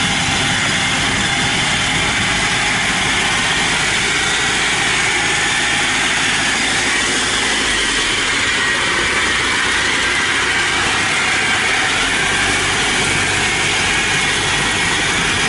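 Engine of a small tracked rice-hauling carrier running steadily as the machine drives along.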